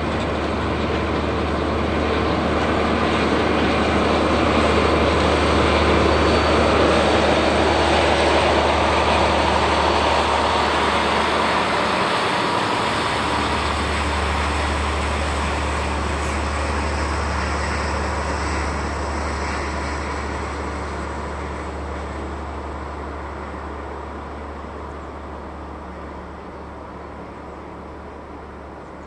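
Diesel train passing on the Sekihoku Main Line: the rumble of its engines and of wheels on the rails swells to its loudest about six seconds in, then slowly fades away.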